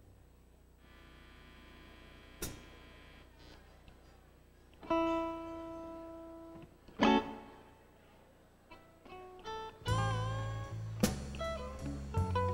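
Electric guitar opening a slow blues with a few sparse, ringing picked notes, then bent notes from about ten seconds in as a low bass line comes in underneath.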